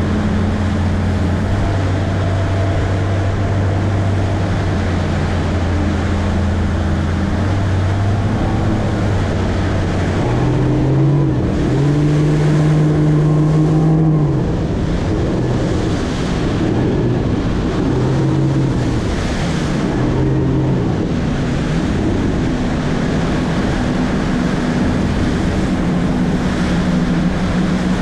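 200 hp Mercury outboard running with the boat under way, with wind and water rushing past. The engine note holds steady, climbs about ten seconds in and wavers up and down for several seconds, then settles at a steady higher pitch.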